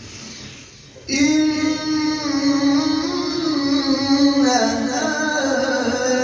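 A qari's voice reciting the Quran in a long, drawn-out melodic phrase. It starts about a second in after a short pause, holding one high note for several seconds with slow ornamented turns in pitch.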